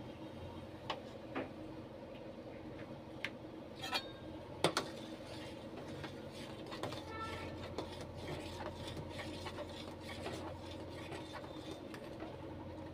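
Steel spoon stirring milk in a stainless steel pot, scraping and rubbing against the pot's sides and bottom through the second half. Before that, a few sharp clinks and knocks, over a steady low hum.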